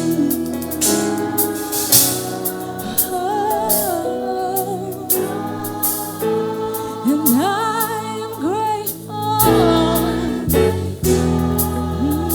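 Gospel worship song of thanksgiving: a lead vocal with wide vibrato sings over sustained backing chords and a steady drum beat with cymbal hits.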